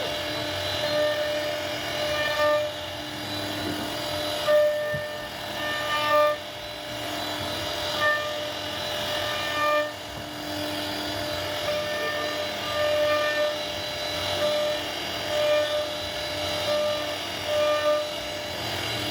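CNC router running while it carves wood: a steady spindle whine, with short pitched motor tones coming and going every second or two as the head moves.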